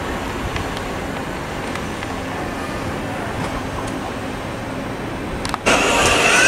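Steady rail and background traffic noise as an electric train approaches the station. Near the end an abrupt cut to a louder Thameslink Class 700 electric train arriving, with a steady high whine from its motors.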